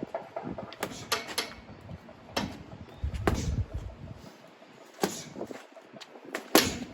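Gloved punches landing on a heavy punching bag: a quick combination of about four thuds near the start, then single hits every second or two, the last one the loudest.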